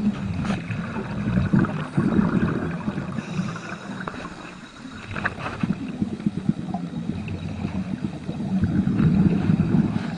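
Underwater ambience picked up by a submerged camera: a low, uneven rumble of moving water that swells and fades, with a few faint clicks.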